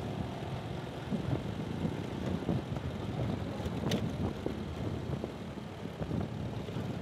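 Street traffic: motorcycles and cars running and passing on a city street, a steady mix of engine and tyre noise. A short sharp click about four seconds in.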